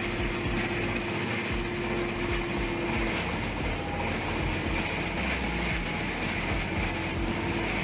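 Wood chipper running steadily under load as a grapple feeds whole conifer trees into it, a continuous machine drone with a held tone that fades in the middle and comes back near the end.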